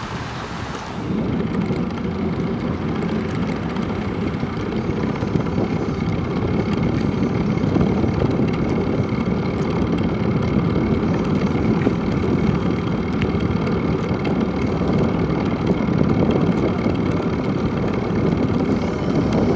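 Steady rushing wind and road noise picked up by a camera mounted on a moving bicycle on pavement; it comes in about a second in and stays even.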